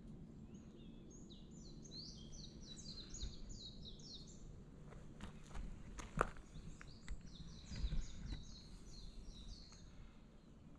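A songbird singing two long runs of quick, high, repeated notes, with a few sharp knocks and thumps in the middle, over a faint outdoor hum.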